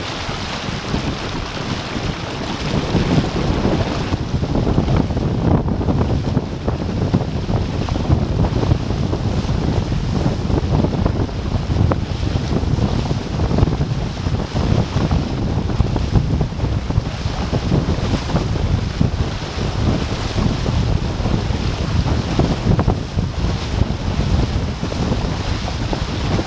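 Wind buffeting the microphone over the rush and splash of water along the hulls of a Hobie Tandem Island sailing trimaran moving at speed, with spray thrown up. The sound is loud and gusty throughout.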